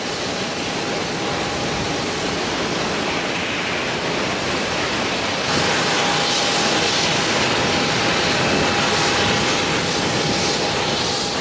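Steady noise of a jet airliner in flight. It grows a little louder about halfway through, when a faint steady hum joins it.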